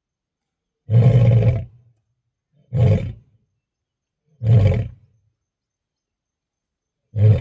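Male lion roaring: four deep grunts, each shorter than the last, with the gaps between them growing longer. This is the trailing grunt series that ends a lion's roaring bout.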